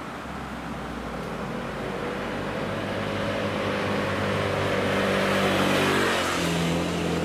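Motor scooter approaching and passing close by, its engine growing steadily louder and then dropping in pitch as it goes past about six seconds in.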